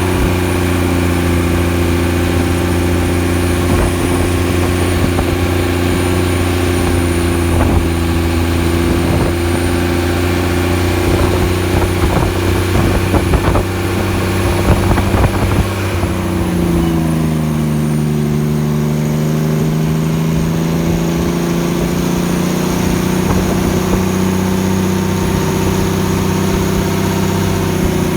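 Kenworth T800 truck's diesel engine pulling against its engine brake on a long downhill grade, a loud, steady, deep running note. About sixteen seconds in the revs fall and the note drops to a lower pitch, then holds. Irregular clicks and rattles come just before the drop.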